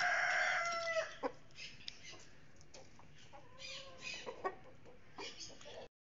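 A rooster crowing: its long held final note ends with a drop in pitch about a second in. Faint clucking and light clicks follow.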